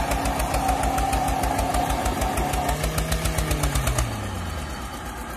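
Tractor diesel engine labouring under load with a rapid, even thudding beat as it pulls against a chained SUV. Around three seconds in an engine's pitch rises and falls back, and about four seconds in the thudding stops and the sound drops to a quieter, steady run.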